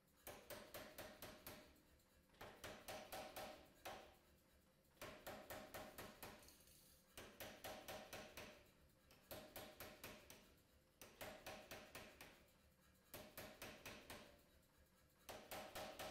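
Pneumatic power hammer striking a hot steel billet in short runs of rapid blows. There are about eight bursts of a second or two each, with brief pauses between them.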